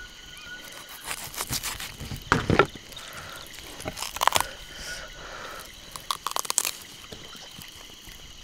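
A whole cooked chicken being torn apart by hand and with a knife: skin, meat and joints crackle and tear in short bursts, about four times, with knife scrapes.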